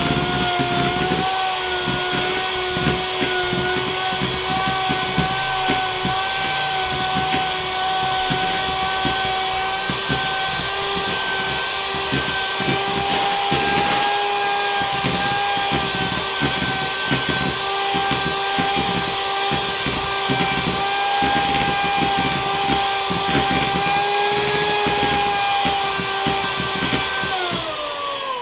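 Electric hand mixer running steadily at its second speed, its twin wire beaters churning cream into butter, with rapid irregular low knocks as the beaters slap through the thickened curds. Near the end the motor is switched off and winds down, its whine falling in pitch.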